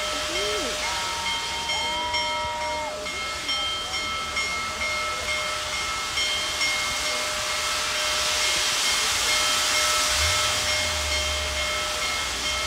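Big Boy 4014 steam locomotive standing and hissing steam, with a steady high whine under the hiss. The hiss swells about eight seconds in, and a low rumble joins about ten seconds in as the engine begins to smoke heavily.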